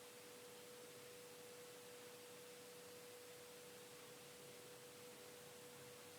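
Near silence: faint steady hiss with one thin, unchanging tone running under it.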